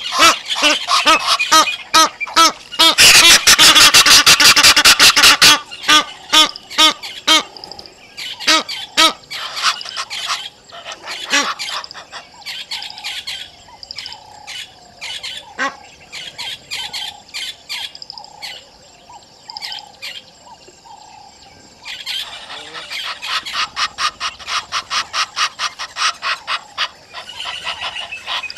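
Egyptian geese calling: fast runs of harsh, honking calls, loudest in the first few seconds. Scattered calls follow, then another quick run starts about two-thirds of the way through.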